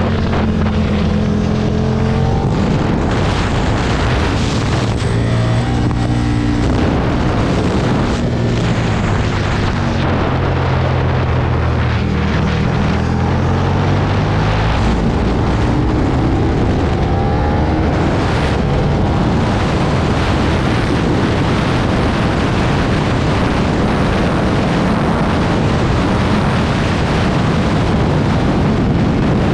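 2009 Aprilia Tuono's V-twin engine pulling hard at speed, its pitch dropping and climbing again as the rider shifts and opens the throttle, under heavy wind rush. About halfway through, the engine climbs steadily in pitch, and after that the wind noise is the loudest thing.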